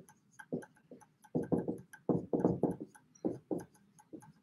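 Dry-erase marker squeaking and tapping on a whiteboard as letters are written: a run of short strokes, a few a second.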